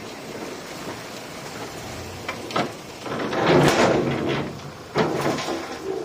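Loose soil and rock crashing and scraping during earthmoving, with many sharp knocks. A louder rush about three and a half seconds in, and a sudden crash about five seconds in.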